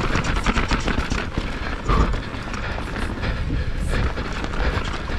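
YT Jeffsy mountain bike descending a rough enduro trail at race speed, heard from the rider's camera: a steady clatter and rattle of the bike over rough ground, with a harder knock about two seconds in.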